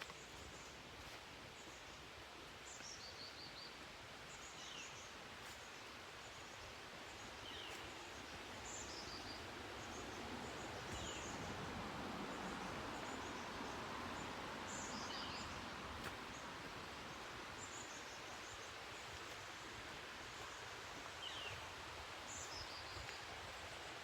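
Woodland ambience: a steady soft hiss that swells in the middle, with a small bird repeating short, high, falling calls every few seconds.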